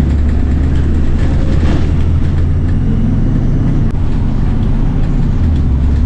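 City bus driving along, heard from inside the passenger cabin: a steady low engine and road rumble.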